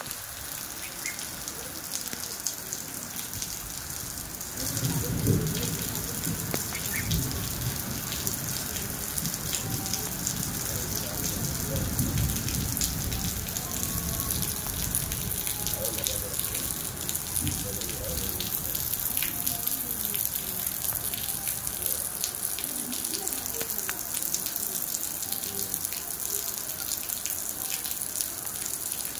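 Steady rain falling: a continuous hiss dotted with the ticks of individual drops. A louder low rumble comes in about five seconds in and fades by about eighteen seconds.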